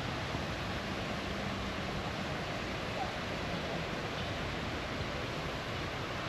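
Steady, even rushing noise with no distinct events, like running water or surf.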